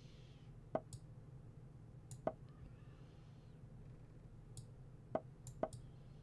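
A handful of sharp computer-mouse clicks, several in quick pairs, as chess pieces are moved in an online game, over a faint low steady hum.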